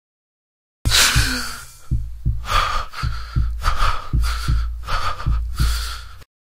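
A person panting and gasping hard, quick breaths in a steady rhythm. It starts abruptly about a second in and cuts off sharply near the end.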